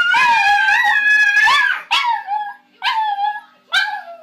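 A dog howls in one long, wavering call of about two seconds, then gives three shorter whining calls, "talking" back in a howling exchange.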